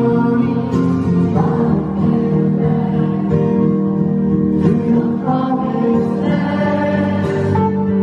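A man singing live with a strummed acoustic guitar, heard from the audience of a concert hall.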